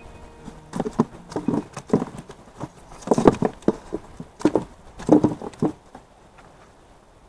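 Irregular hollow knocks and thuds of hands and gear against a small boat's hull and a styrofoam catch box, in three short clusters, the loudest a little past the middle, dying away near the end.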